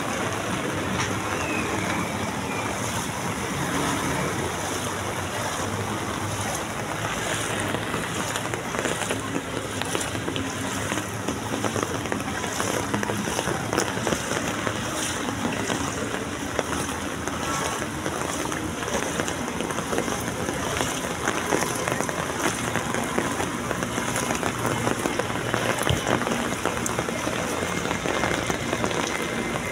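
Heavy rain falling steadily onto flooded pavement and standing water, a dense hiss of drops striking the water's surface.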